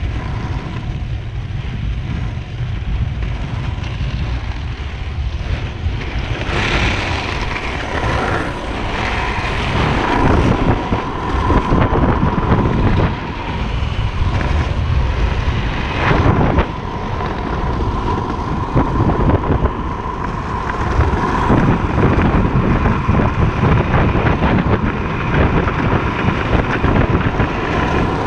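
Wind buffeting the microphone at downhill speed over the rolling of freebord wheels on asphalt, with a steady hum running through it. A few brief louder rushes of noise come through, one about six seconds in and one about sixteen seconds in.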